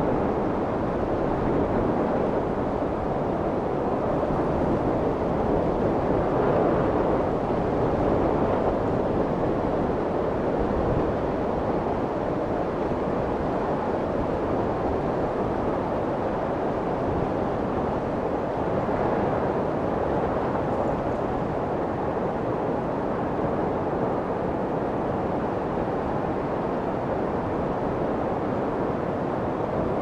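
Steady rushing white noise with no distinct events, swelling slightly and easing off now and then.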